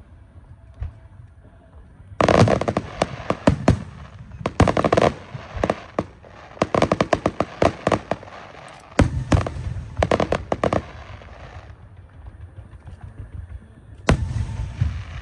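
Electrically fired fireworks going off in rapid volleys of sharp bangs and crackles, starting about two seconds in and coming in clusters until about eleven seconds, with another volley near the end.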